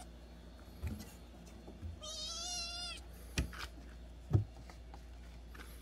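A young kitten, about eight weeks old, meows once: a single high call of about a second that falls slightly in pitch, about two seconds in. A few dull knocks come before and after it, the loudest about four and a half seconds in.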